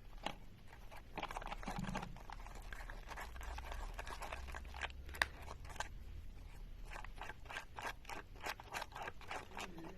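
Two-part glue being stirred on cardboard: faint, irregular scraping and small clicks as the white and grey halves are worked together.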